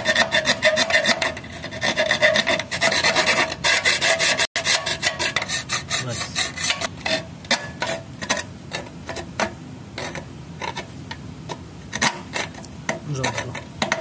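Hand file rasping back and forth on the cut edges of a lock slot in an aluminium sliding-window section, deburring and smoothing it so the lock will sit. Quick repeated strokes, with a ringing note under them for the first few seconds, then slower, more separate strokes.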